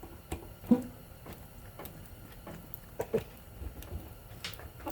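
Scattered clicks and knocks of hand tools working on a ceiling fan motor being taken apart, with one sharper knock about a second in.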